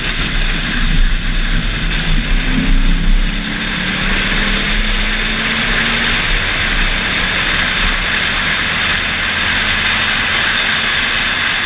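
Wind rushing and buffeting over an outside-mounted camera's microphone on a 2008 Mustang GT at speed, with the car's V8 faint underneath. The low buffeting eases after about three and a half seconds, leaving a steady hiss.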